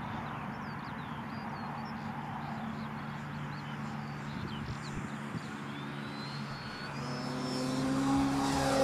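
Electric RC plane's Joker 6350 brushless motor and 16x12 propeller droning in flight. The drone grows steadily louder over the last couple of seconds as the plane comes in low at full throttle, drawing about 85 A.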